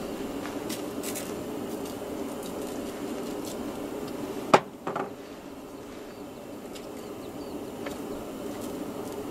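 A sharp knock about halfway through and a softer one just after, as a plastic bottle is set down on a camp table, over a steady low rushing sound.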